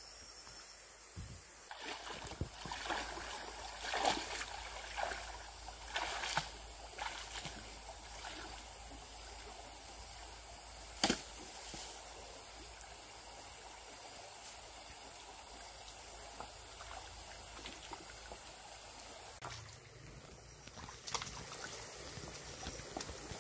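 Shallow stream water trickling and sloshing as a person wades in it and reaches into the water, over a steady high hiss. A run of sudden knocks and splashes comes in the first few seconds, and a single sharp knock near the middle.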